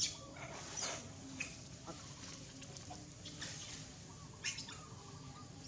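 Faint animal calls with scattered short clicks and rustles, the loudest near the start and about four and a half seconds in.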